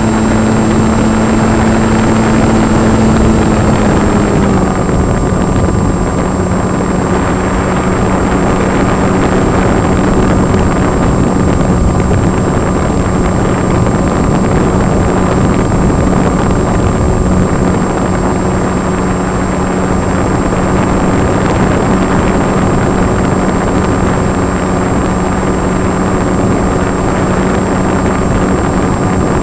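Electric motor and propeller of a HobbyKing EPP FPV radio-controlled plane heard from its onboard camera: a steady drone over heavy wind rush. The drone's pitch drops slightly about four seconds in, then holds steady.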